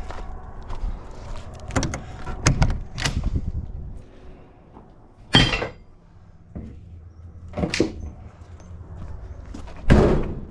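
Scrap items being loaded into a trailer: a string of separate knocks and clanks, about six, the loudest about five and a half seconds in and just before the end.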